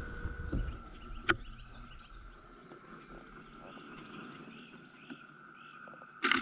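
Steady chorus of frogs and insects, with one sharp click about a second in. Near the end a short burst of rapid camera shutter clicks, the camera firing in continuous mode, is the loudest sound.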